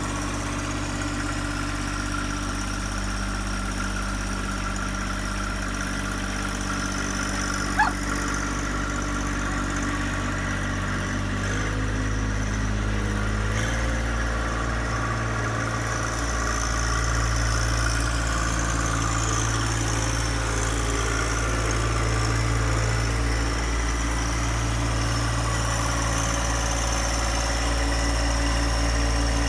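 John Deere 1025R compact tractor's three-cylinder diesel engine running steadily while the tractor drives and works its front loader; about twelve seconds in the engine speed steps up and stays higher.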